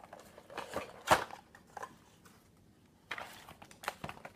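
Cardboard box and paper packaging being handled: scattered rustling and light knocks, with one sharp knock about a second in and a denser patch of rustling near the end.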